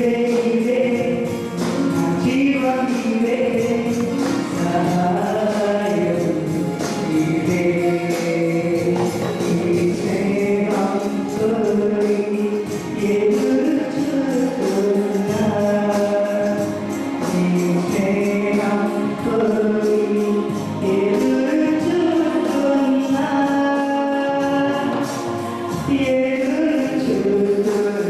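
A man singing a Christian worship song into a microphone, amplified over a music accompaniment with steady percussion.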